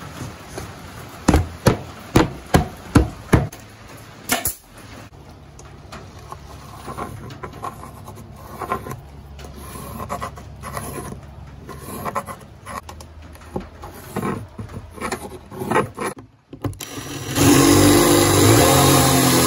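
About half a dozen sharp wooden knocks in quick succession, then light scraping and rubbing on wood. Near the end a power drill starts boring a hole in a wooden board, running steadily; this is the loudest sound.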